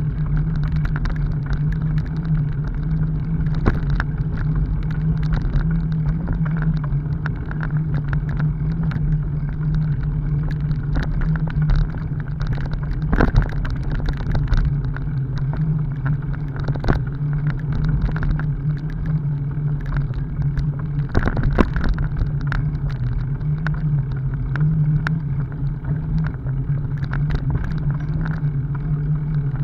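Bicycle rolling over a rough dirt forest track, picked up by a camera mounted on the bike: a steady rumble of tyres and frame vibration, with scattered knocks and rattles from bumps and ruts, the sharpest about 13 and 21 seconds in.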